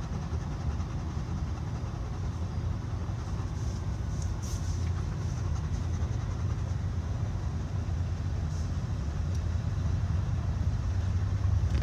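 Steady low rumble of a vehicle running, getting slightly louder toward the end.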